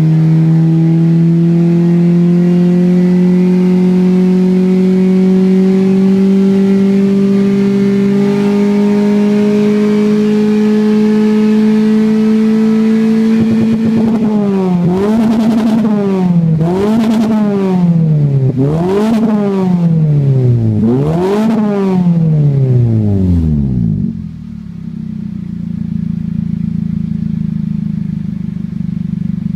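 Toyota 1ZZ-FE 1.8-litre inline-four DOHC engine sounding through a modified aftermarket Kakimoto muffler with its inner silencer removed. The revs are held high, creeping slightly upward, for about fourteen seconds. Then come four quick blips, the pitch dropping and climbing each time, before it falls back to idle about 24 seconds in.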